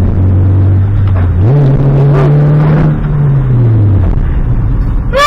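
Volkswagen car engine and its resonator-deleted aftermarket exhaust pulling hard. The engine note steps up in pitch about a second and a half in, holds, then falls back around four seconds in.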